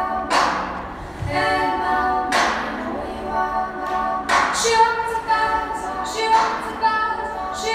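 The dance routine's music playing: slow, sustained vocal harmonies, with a crash-like hit that fades out about every two seconds.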